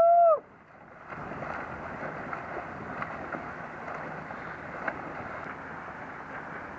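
Steady rushing of wind on the microphone at the water's edge, with small irregular clicks through it. A person's voice calls out briefly at the very start.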